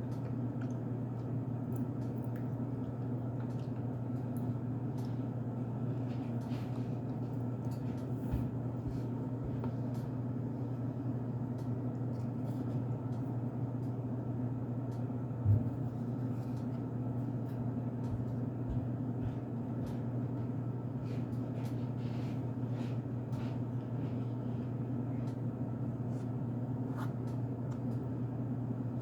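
Steady low hum with faint, scattered crunchy clicks of someone chewing cornstarch, and one louder knock about halfway through.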